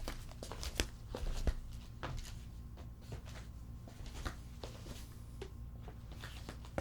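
Footsteps of someone walking in sandals: a series of short slaps and clicks, about one every 0.7 s for the first two seconds, then sparser and fainter.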